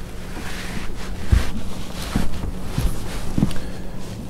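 Wind buffeting the microphone in gusts, with four dull low thumps, the loudest about a second and a half in, over a faint steady hum.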